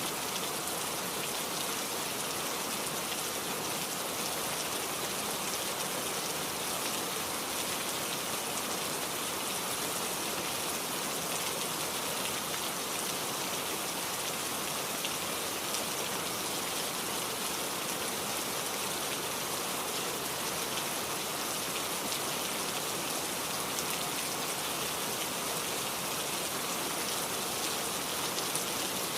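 Heavy rain falling steadily, a dense even hiss of many drops hitting a surface, with no change in strength.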